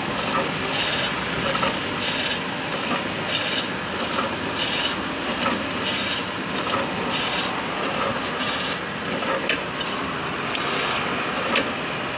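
Automatic meat slicer cutting raw pork belly, with one cutting stroke about every second and a quarter over the machine's steady running noise. A single sharp click comes near the end.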